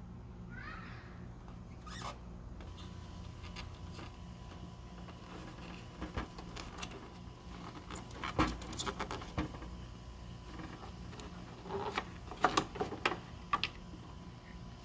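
Hard plastic clicks and rattles of a tail-light bulb socket being twisted and pulled out of the lamp housing by hand. They come in two busy clusters, the first starting about six seconds in and the second near the end, over a faint steady hum.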